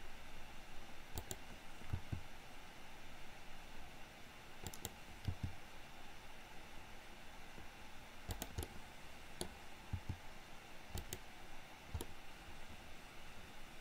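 Computer keyboard key presses and mouse clicks: about ten single, irregularly spaced clicks over a faint steady hiss.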